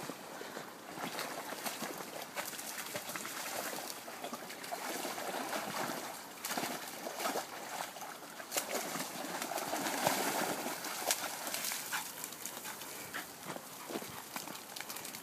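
Working cocker spaniel splashing and wading through a shallow stream, with water sloshing and trickling, amid scattered rustles and clicks.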